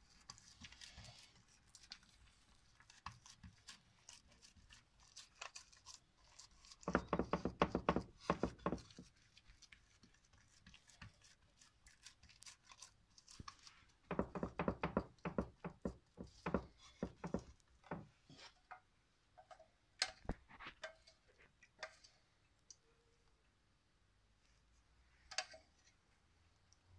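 Hands patting and stretching a soft, buttered sheet of dough in a metal baking pan: quiet slaps, taps and rubbing against the pan. These come in two clusters, a short one about a quarter of the way in and a longer one around the middle, with scattered single taps in between.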